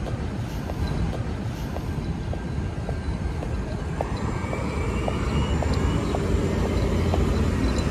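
Manhattan street traffic: a steady rumble of passing vehicles that slowly grows louder, with a light regular ticking about twice a second.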